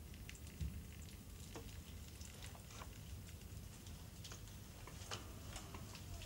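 Faint, irregular small clicks and taps, two or three a second, over a low steady hum.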